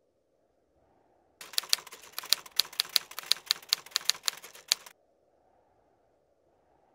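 Typewriter keys clacking in a quick, uneven run of about a dozen strokes, a sound effect for text being typed onto the screen; it starts about a second and a half in and stops about two seconds before the end.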